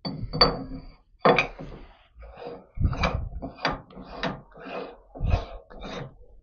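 Steel collet chuck body clinking onto the lathe's L0 long-taper spindle nose, followed by the threaded locking ring being spun on by hand. The ring spinning gives a run of short metal scrapes and knocks, about two a second.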